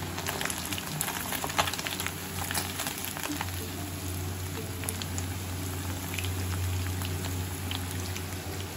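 Pieces of rohu fish frying in hot oil in a cast-iron wok: steady sizzling and bubbling, with frequent small crackling pops.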